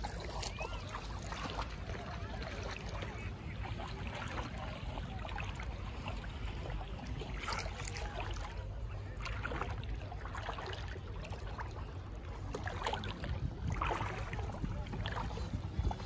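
Shallow, calm seawater sloshing and splashing around legs as people wade and stand in it, over a steady low rumble of wind on the microphone. The sloshing comes in a few louder spells through the middle and latter part.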